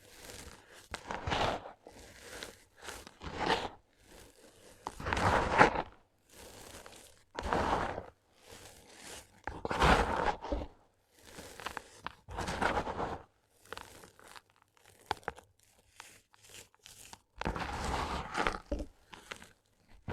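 Lumps of gritty sand cement crunching and crumbling, in a series of separate crunches a second or two apart, the loudest about five and ten seconds in.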